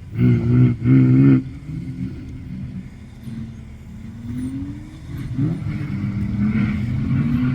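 Drift car engine revving: two loud bursts in the first second and a half, then a steadier engine note whose pitch rises slowly.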